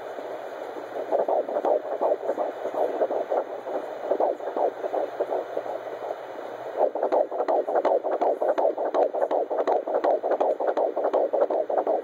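Fetal heartbeat at 13 weeks picked up by a handheld pocket fetal Doppler and played through its speaker: fast, rhythmic whooshing pulses at about 140 a minute. The pulses are faint and patchy at first, then come through strong and regular about seven seconds in.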